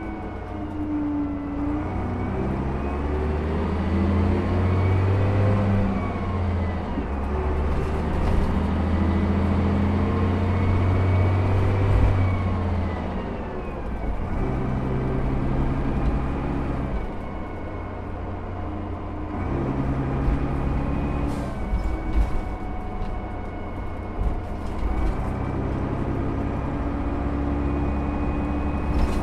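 Leyland National Mk1 bus's Leyland 0.510 8.2-litre fixed-head turbodiesel driving along, heard from inside the bus, its revs climbing and dropping several times. A high whine rises and falls with the revs.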